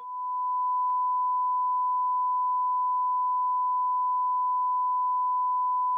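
Censor bleep: a steady, pure 1 kHz tone laid over the speech to hide details of an unreleased product, with a faint click about a second in.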